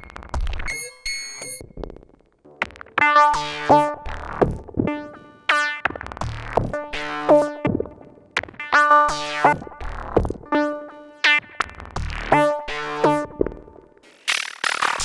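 Eurorack modular synthesizer patch voiced entirely by a Mannequins Just Friends oscillator module, shaped by filters and a little reverb: a sparse opening, then about three seconds in a repeating rhythmic pattern of sharp-attack pitched chords with low thumps. A bright noisy swell comes in near the end.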